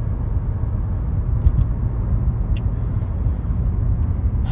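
Steady low rumble of road and engine noise inside a moving car's cabin. It cuts off suddenly at the very end.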